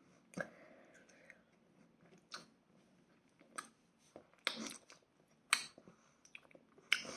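A person chewing and biting food close to the microphone, with short crunchy clicks coming irregularly about once a second.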